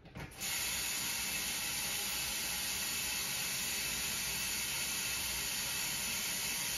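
Kitchen faucet running, tap water pouring steadily into a half-gallon plastic water bottle held under it; the flow starts about half a second in.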